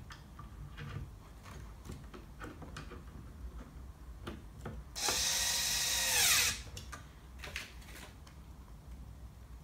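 Cordless electric screwdriver driving an M3 bolt into the stepper-motor mount. It runs for about a second and a half, starting about halfway through, then winds down in pitch as it stops. Before it there are light clicks and taps of the bolt and parts being handled.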